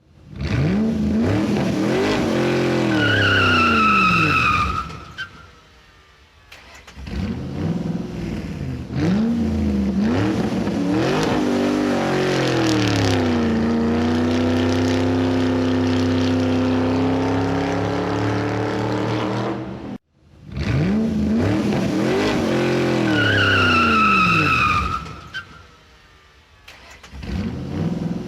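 A speeding car: the engine revs up and down hard as it runs through the gears, with a tyre squeal about three seconds in, then holds a steady high-pitched run for several seconds. It cuts off suddenly about two-thirds of the way through, and the same revving and squeal sequence starts over.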